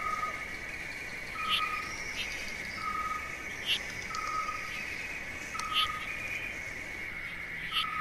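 Wild-animal soundscape: a short whistled note repeating evenly about every second and a quarter over a steady high trill, with a few brief sharp chirps scattered through.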